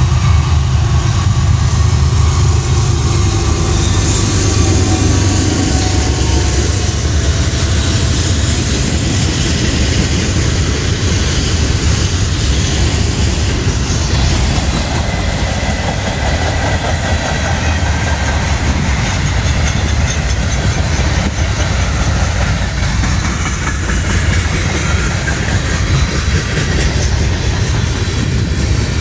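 Slow-moving CSX freight train passing close by. Its two lead diesel locomotives run past first, with their engine sound heaviest in the first few seconds, then a long string of freight cars (tank cars, then lumber-laden centerbeam flatcars) rolls steadily past on the rails.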